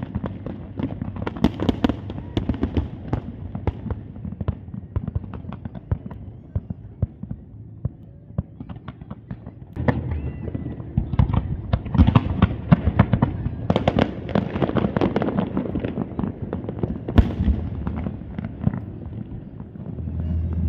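Fireworks bursting and crackling in rapid, overlapping succession, with a low rumble beneath. The barrage grows denser and louder about halfway through.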